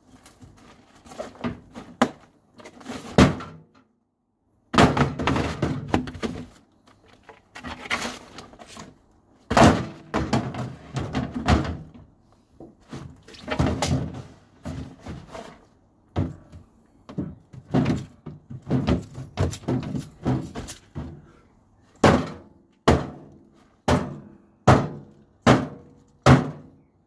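A wooden plank is swung hard against a microwave oven's metal casing again and again, making many heavy thunks in irregular runs. Near the end the blows come steadily at about one a second. The board is beaten until it breaks.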